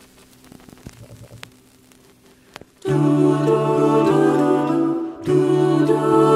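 Faint clicks for the first three seconds, then an a cappella choir of soprano, alto, tenor and bass voices enters with sustained wordless chords. It breaks off briefly and comes back in.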